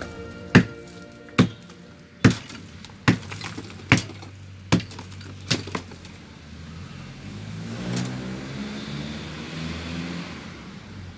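Hammer blows on a tiled concrete slab, about seven sharp strikes a little under one a second, breaking up the concrete. The strikes stop about halfway through, and a low engine-like hum swells and fades.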